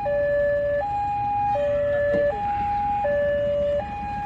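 Railway level-crossing warning alarm sounding, an electronic two-tone that alternates between a high and a low note about every three-quarters of a second, signalling that a train is approaching.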